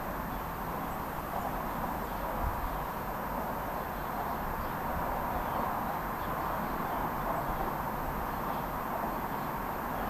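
Strong, steady wind rushing, with faint bird chirps here and there.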